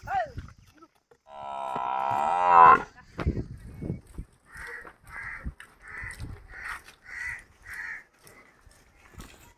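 Water buffalo lowing: one long moo, a little over a second long, that rises in pitch and ends loudest. After it comes a run of about seven short, evenly spaced calls, roughly two a second.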